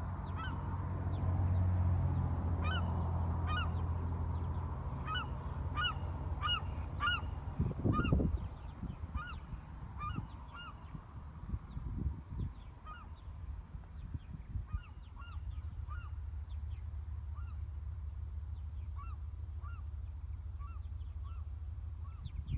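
A flock of geese honking in a long series of short calls, many together in the first half, then fainter and more scattered. A low wind rumble on the microphone runs underneath, with a couple of louder gusts.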